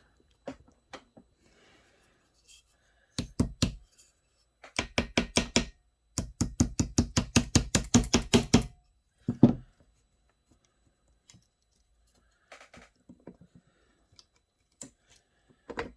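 Rapid repeated knocking in a few bursts, the longest about seven knocks a second for two and a half seconds, while the chainsaw's clutch is being worked into place.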